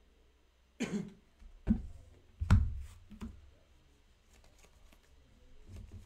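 A person coughing, three or four short coughs in quick succession, the third the loudest.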